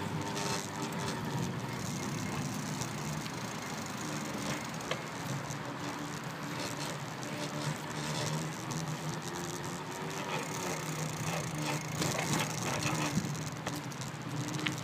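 Bicycle riding along, heard from a phone mounted on it: a continuous clatter of small clicks and rattles over a steady low hum.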